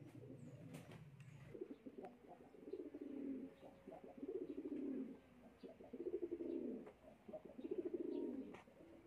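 Dove cooing: five low, throbbing coo phrases, each under a second, repeating about every one and a half seconds, with a faint steady hum in the first second and a half.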